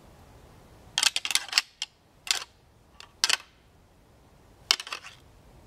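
Pair of deer antlers clacked and ground together in short bouts of rattling, about a second in, twice more in the middle and again near the end: a rattling call that imitates bucks sparring.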